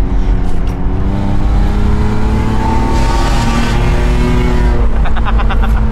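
Toyota Mark II's engine pulling hard through a blown exhaust, heard from inside the cabin: the pitch climbs for about three seconds, then holds and eases a little. The exhaust has burst and the car is very loud, which the driver thinks may be a seal that has come open.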